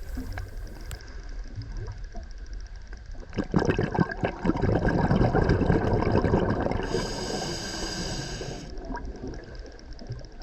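Underwater bubbling and gurgling from a scuba diver's breathing: a burst of exhaled bubbles from the regulator starting about three and a half seconds in and fading by about eight and a half seconds, over a low steady underwater background.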